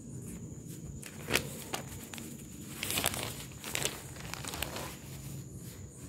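Rustling and crinkling from silk cotton sarees being handled, with several brief sharp handling noises, the loudest a little over a second in and around three seconds in.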